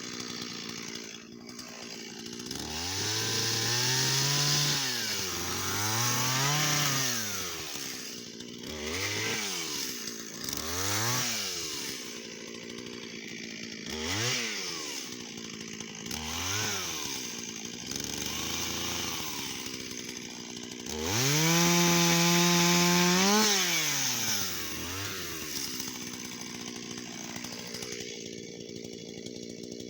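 Shindaiwa 488 two-stroke chainsaw revving up and down repeatedly, with one longer run at high revs about two-thirds of the way through, then dropping back to idle near the end.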